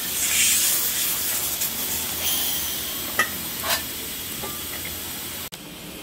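Refrigerant gas hissing through the gauge and charging hose into a refrigerator compressor as it is being charged, loudest for about the first second, with a few light metallic clinks. The hiss cuts off abruptly about five and a half seconds in.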